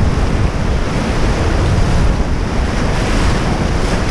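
Whitewater river rapids rushing around an inflatable raft, a steady loud roar of water mixed with wind buffeting on the camera microphone.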